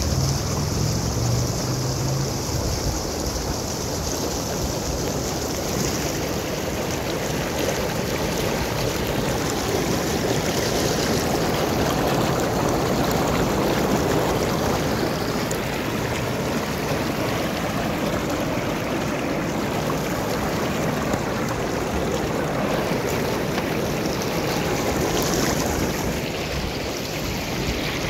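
Water churning and bubbling steadily, stirred up by the air jets of an inflatable hot tub. There is a low rumble in the first couple of seconds.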